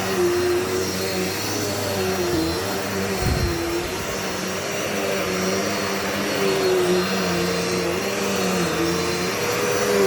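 Dirt Devil Multi-Surface vacuum cleaner running, its motor hum steady but wavering slightly in pitch. There is a short low thump about three seconds in.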